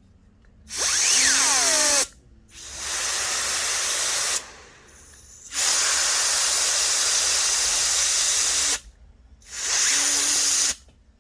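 Canned air duster spraying in four blasts of hiss, the longest about three seconds, into a laptop cooling fan. A falling whine runs through the first blast.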